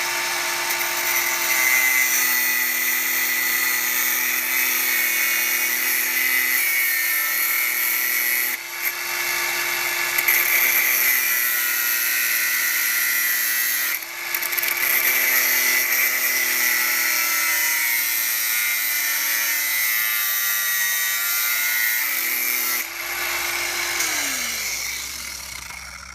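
Electric power tool cutting through the metal body of a combination padlock: a steady motor whine with harsh high-pitched cutting noise, broken by a few brief pauses. Near the end the motor winds down, its pitch falling.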